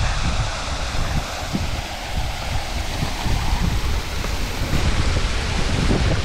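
Fountain water splashing steadily into its stone basin, a continuous hiss, with wind buffeting the microphone as a low, uneven rumble.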